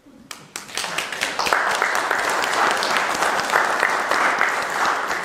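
Audience applauding: a few claps at first, swelling to full, steady applause within about a second and a half.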